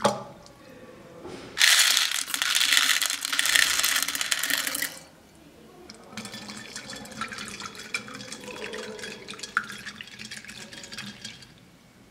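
A small plastic toy plunks into a glass bowl of water. About a second and a half later, a loud rushing pour of water beads into the water runs for about three seconds, then gives way to softer crackling and trickling with small ticks as the beads settle.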